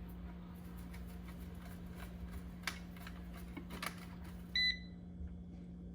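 Eufy RoboVac 15C Max giving one short electronic beep about four and a half seconds in, the signal that it has docked and started charging. Under it are a steady low hum and a couple of faint clicks.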